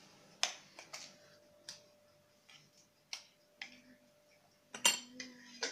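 A series of irregular sharp clicks and taps, the loudest near the end, with a faint steady tone behind them.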